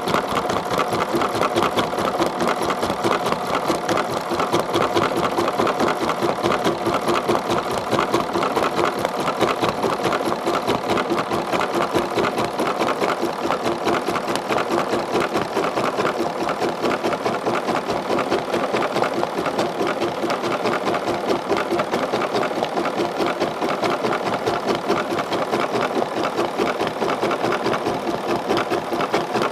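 BERNINA 780 computerised embroidery machine stitching out a metallic-thread design, a fast, steady, unbroken run of needle strokes.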